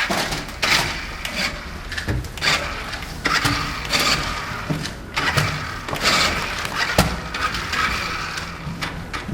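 Footsteps and knocking handling sounds, a sharp knock roughly every half second to second.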